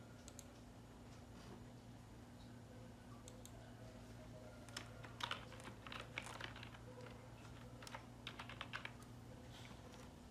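Faint typing on a desktop computer keyboard: a few single clicks, then two quick bursts of keystrokes about five and eight seconds in. A low steady hum runs underneath.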